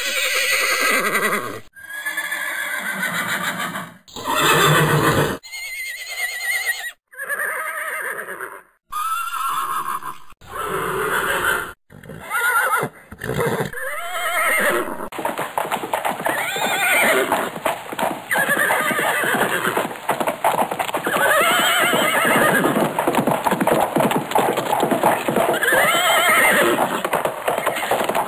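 Horse neighing again and again. In the first half the whinnies come in short pieces that cut off suddenly; in the second half a whinny comes every two to three seconds.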